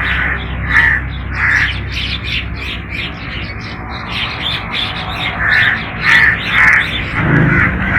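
Crows cawing: three caws in the first two seconds, then a run of four near the end, over the chirping of smaller birds.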